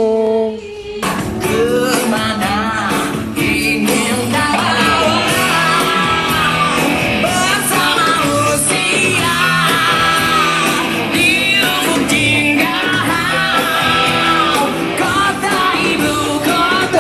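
A lone voice sings briefly, then about a second in a rock song with a band and a singer starts and carries on.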